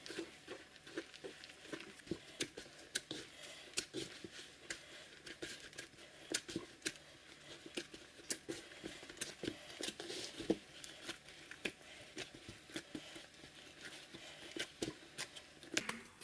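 Hands mixing and kneading flour-and-water dough in a wooden bowl: faint, irregular soft squelches, pats and taps of dough and fingers against the bowl.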